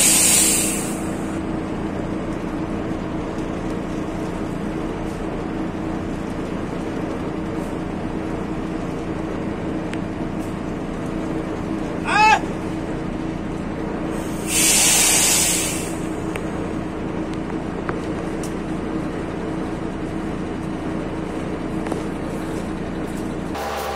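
Bulk feed truck's feed-transfer machinery running with a steady hum. Two loud hisses of released air, each about a second and a half long, come at the very start and again about two-thirds through. A quick run of short rising chirps sounds just after the middle.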